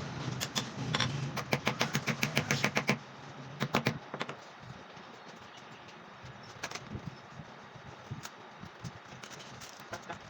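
Quick run of sharp light taps, about a dozen in the first three seconds, two more a little later, then scattered faint ticks: hand-tool work on the exhaust fan's parts during the bearing replacement.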